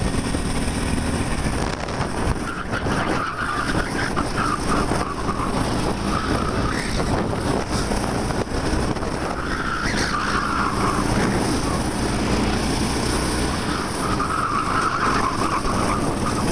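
A 13 hp kart's engine running steadily under power, heard through a microphone inside the driver's helmet, with the tyres squealing in the corners in four or so separate stretches.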